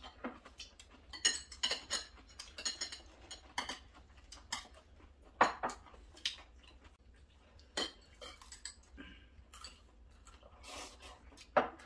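Metal chopsticks and spoons clicking and scraping against ceramic bowls, plates and an earthenware pot: scattered light clinks of people eating, the loudest about five and a half seconds in.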